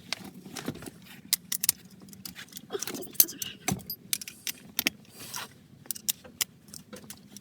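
Irregular sharp metallic clinks and clicks from an 18 mm socket, wrench and steering-wheel center bolt being handled and started onto the steering shaft.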